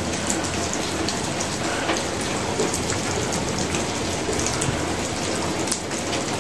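Rain falling steadily onto a flat concrete rooftop standing in water: an even splashing hiss with many small drop ticks.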